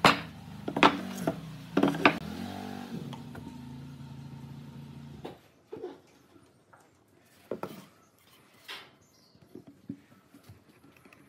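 Solid pine workpieces knocking against each other and the wooden workbench three times as they are handled, over a steady hum that cuts off about five seconds in. Then quieter light taps and clicks as glue is squeezed from a bottle into a mortise and a tenon is set into it.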